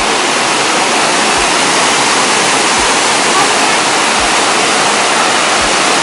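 Waterfall and the fast river below it rushing steadily and loudly.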